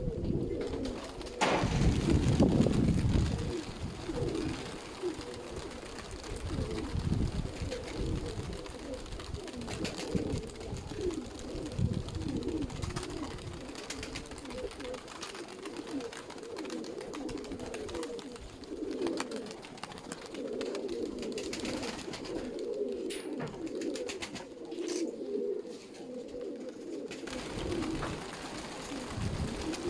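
A group of sickle-winged domestic pigeons cooing continuously, many calls overlapping. A loud low rumble comes about two seconds in.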